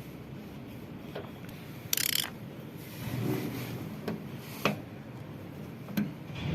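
Hand tools and metal parts clicking, knocking and scraping while a washing machine's front panel hardware is being worked loose, with a short hissing scrape about two seconds in.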